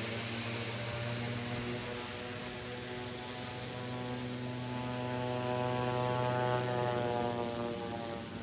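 Twin-engine turboprop plane taxiing with both propellers turning: a steady, evenly pitched drone with a high whine above it, fading a little near the end.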